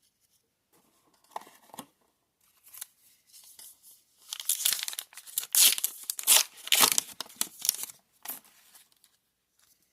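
Trading card booster pack wrapper being torn open and crinkled by hand, with light rustles at first and a loud stretch of crackling from about four to eight seconds in.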